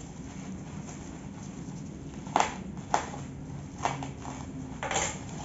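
Plastic packaging wrap being cut with a mini utility knife and pulled apart: a handful of sharp crackles and snaps in the second half, the loudest about two and a half seconds in.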